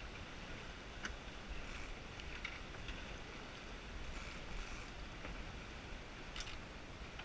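Water rushing along the hull of a Lightning sailboat under sail, with a steady low wind rumble on the microphone and a few brief ticks.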